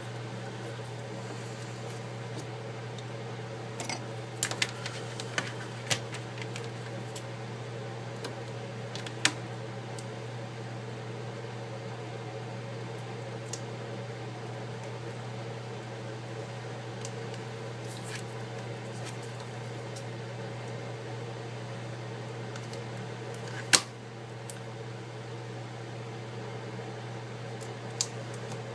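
A steady mechanical hum, with scattered light clicks and taps from small parts and adhesive tape being handled during a tablet repair; one sharper tap about three-quarters of the way through.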